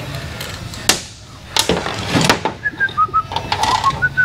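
Metal engine parts and tools knocked and set down on a workbench during a Harley Twin Cam engine teardown, a few separate sharp knocks, followed in the second half by a string of short high chirps.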